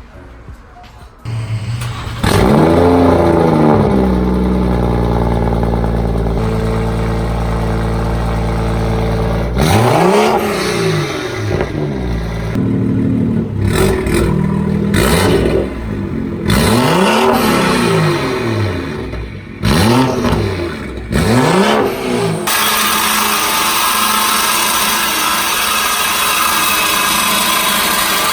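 BMW 340i's B58 turbocharged inline-six, with a catless downpipe, straight-piped mid pipe and gutted muffler, starting with a flare of revs and settling to a steady idle. About ten seconds in it is blipped five times, each rev rising and falling. A steady rushing noise takes over near the end.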